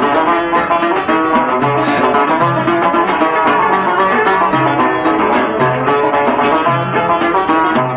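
Instrumental interlude of an Algerian chaabi song: a plucked-string ensemble plays a quick, busy melody over a low bass note that repeats about once a second.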